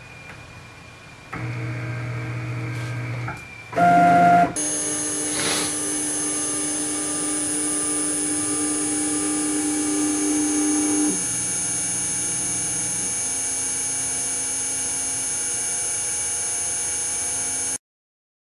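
Stepper motors of a home-built CNC mill driving the axes through ball screws: a steady electric whine of several held tones. Its pitch steps abruptly a few times as the moves change, and it cuts off suddenly near the end.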